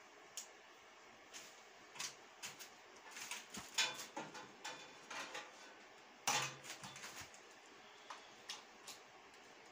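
Irregular handling noises: scattered clicks, knocks and rustles from someone working and moving close by. The loudest come about four seconds in and a sharp knock a little after six seconds.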